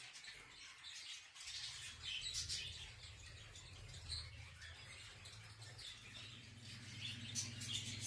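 Small caged songbirds, canaries and finches, chirping faintly and sporadically.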